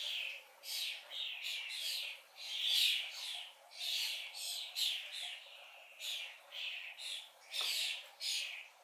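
Starling fledglings begging for food: short, scratchy, hissing calls, each dipping slightly in pitch, repeated about twice a second without pause.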